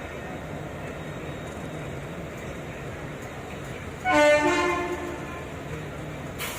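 Steady low rumble of a moving passenger train. About four seconds in, a locomotive horn sounds one loud blast of about a second.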